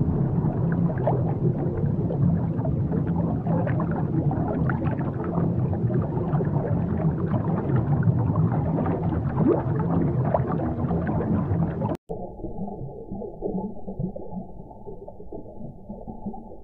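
Muffled underwater rumble with bubbling, gurgling water and many faint crackles. About twelve seconds in it cuts out for an instant and comes back quieter and duller.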